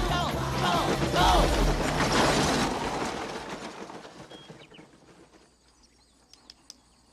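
Whooping voices and a rush of noise fade away over the first four seconds, leaving near quiet broken by a few faint, sharp clicks near the end.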